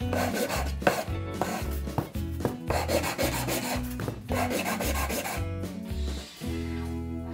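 A wooden block rubbed back and forth against a wooden tenon in several strokes, over background music. The strokes stop about six seconds in.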